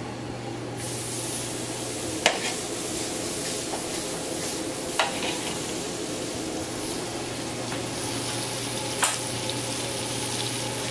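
Sliced peppers, onion and garlic sizzling steadily in butter and olive oil in a skillet over a gas flame, with three sharp clicks, about two, five and nine seconds in.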